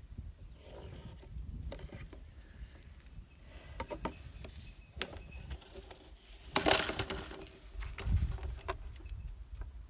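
Light clicks and knocks of a gutter section and a square being handled and marked, with one louder scrape lasting about half a second a little past the middle.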